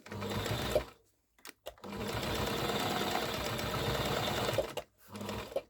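Toyota sewing machine stitching through a rucksack strap in three runs: a short one, a longer one of about three seconds after a pause with a couple of small clicks, and a brief one near the end.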